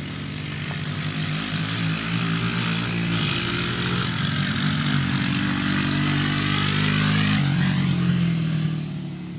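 ATV (four-wheeler) engine running as it is ridden across a grass field, getting louder as it comes closer and dropping away near the end, its engine note changing pitch a couple of times as it speeds up and eases off.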